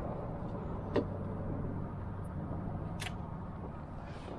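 Steady low outdoor rumble with two short sharp clicks, one about a second in and a thinner, higher one about three seconds in.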